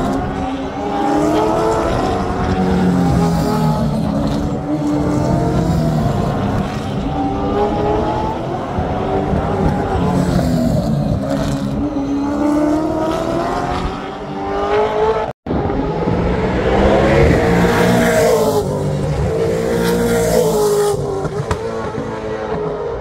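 Several V8 Supercars race cars passing one after another, their engines rising and falling in pitch through gear changes as they brake and accelerate through the corner. The sound cuts out for an instant about two-thirds of the way through, then more cars come by.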